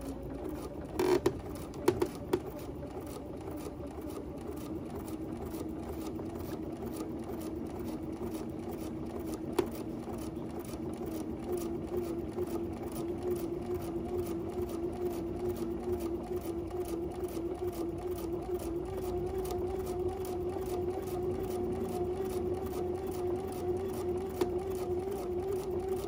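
Domestic sewing machine top stitching slowly through a thick leather strap: an even, steady ticking of the needle over the motor's whine, which grows a little louder about halfway through. A few sharp clicks near the start.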